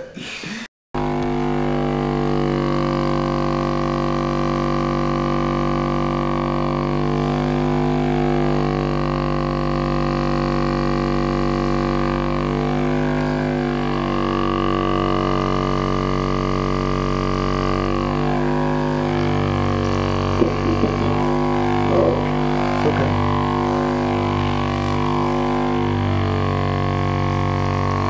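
Background music: a sustained drone under held chords that shift every few seconds.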